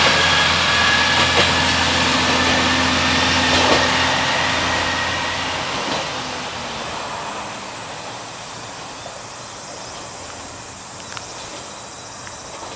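Kanto Railway KiHa 2406, a diesel railcar, pulling away: its diesel engine hum and a high whine fade over the first five or six seconds as it moves off, leaving a fainter steady background.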